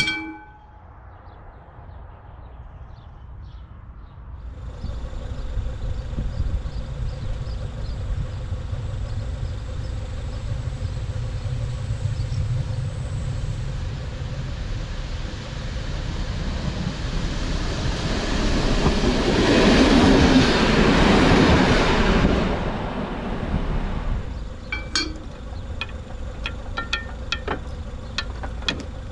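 A diesel train approaching and passing a level crossing, its engine and running noise building to the loudest point about twenty seconds in and then fading. A single metallic clang sounds at the start, and near the end there is a quick run of metallic clicks and clinks.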